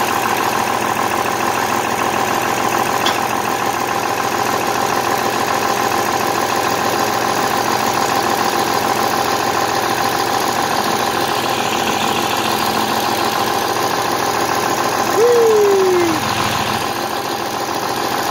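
Farm tractor engine idling steadily. About fifteen seconds in, a brief whine slides downward in pitch.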